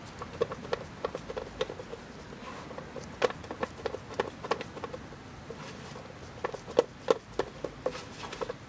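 Plastic spreader folding and smearing body filler and hardener together on a mixing board: a run of short, irregular clicks and slaps, a few a second, with a quieter stretch midway.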